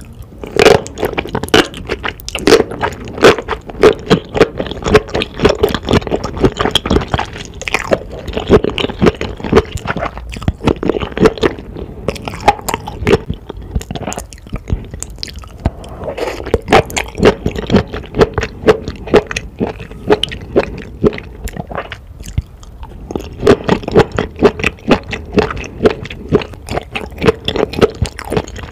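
Close-miked chewing of saucy enoki mushrooms and black bean noodles: a fast, steady run of wet, sticky smacks and clicks, easing off briefly twice.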